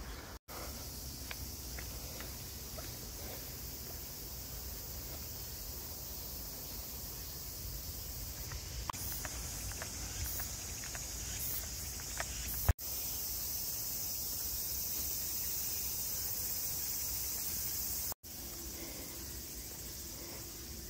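Outdoor ambience: a steady high-pitched hiss over a low rumble, cut off and changing abruptly three times, the hiss louder between about 13 and 18 seconds in.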